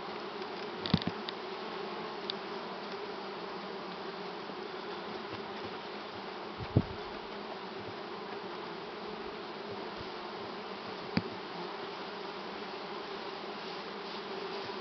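Honeybees buzzing in a steady hum over an open hive full of frames. Three brief sharp knocks cut through: about a second in, near the middle, and about three-quarters of the way through.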